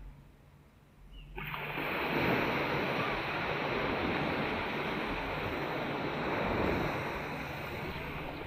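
Ocean surf rushing steadily on a beach. It starts suddenly about a second and a half in, after a quiet start.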